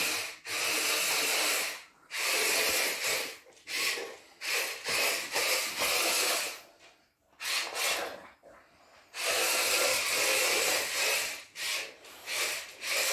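Small electric motor and gearbox of an animated toy tarantula whirring as it walks, in stop-start spurts of a second or two with short pauses between.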